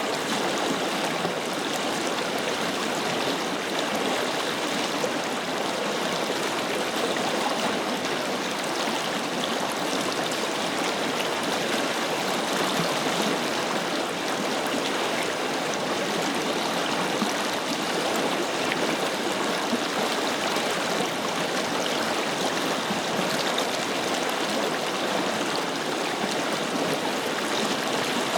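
Forest river flowing steadily: a constant rushing and gurgling of water over stones.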